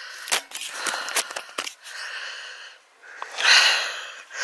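Breathing of the person holding the camera, close to the microphone: about three breaths that swell and fade, the last the loudest, with a few sharp clicks of handling noise in between.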